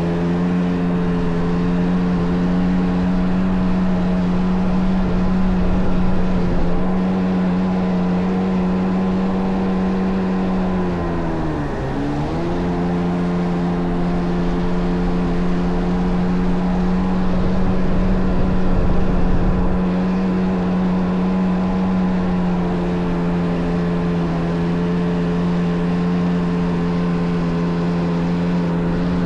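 Kawasaki JS550 stand-up jet ski fitted with a 650 two-stroke twin, running steadily at speed. About twelve seconds in the throttle is briefly let off and the engine note dips, then comes straight back up.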